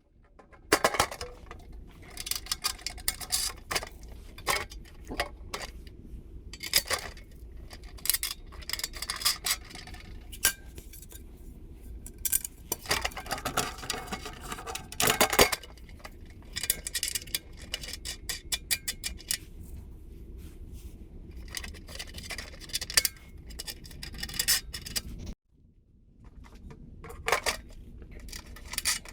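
Metal parts clinking, tapping and scraping as bolts are pushed through the metal pieces and wing nuts are threaded on by hand. The clinks come irregularly, with a short break near the end.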